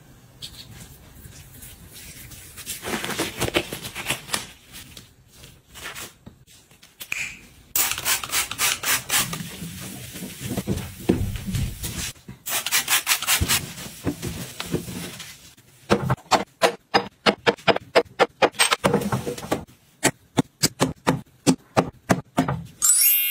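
Close-miked wiping: a cloth rubbed over a clear shelf in bouts of quick back-and-forth strokes, about four a second at the fastest, with quieter handling between the bouts.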